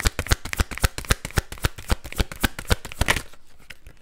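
A deck of tarot cards being shuffled by hand: a quick, even run of card slaps, about five or six a second, that stops about three seconds in, leaving a few faint card rustles.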